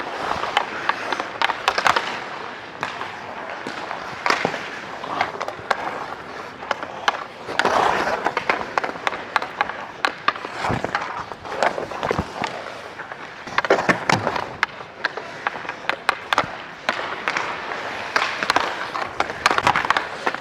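Ice hockey skates carving and scraping across the ice, heard close up from a player's microphone, with frequent sharp clacks of sticks and puck.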